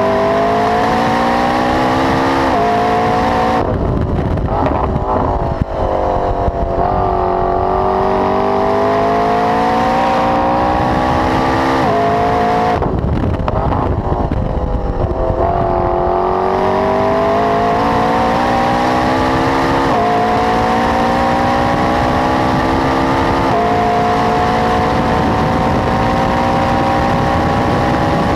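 McLaren 12C's twin-turbo 3.8-litre V8, breathing through a Milltek exhaust, driven flat out. The revs climb hard through the gears, and the pitch drops quickly at each upshift. Twice it comes off the throttle to brake with rapid downshifts, with a sharp crack on the overrun during the first.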